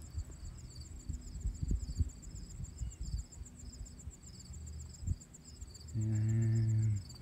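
Insects chirping in a steady, high-pitched rhythmic pulse. There are a few dull low bumps in the first seconds, and about six seconds in a man gives a short, low 'hmm'.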